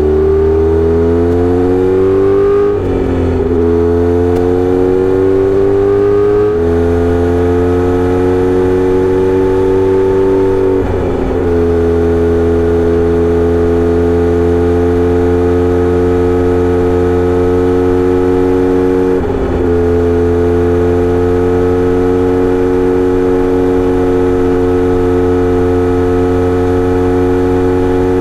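Kawasaki Z900RS inline-four exhaust through a Misty Kintaro short-pipe muffler with L silencer, riding under way. The note climbs in pitch, breaks and drops briefly at about 3, 11 and 19 seconds as the gears are shifted up, and later holds a steady pitch at cruising speed.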